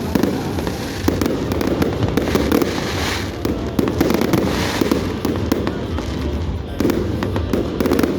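Fireworks display: a dense, continuous barrage of shell bursts and bangs, with a hissing crackle twice around the middle.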